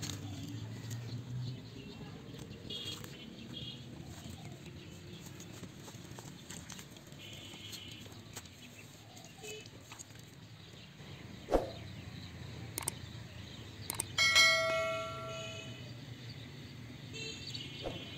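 Quiet outdoor background with faint high chirps. About fourteen seconds in, a single bright bell-like ding rings out and fades over about a second and a half.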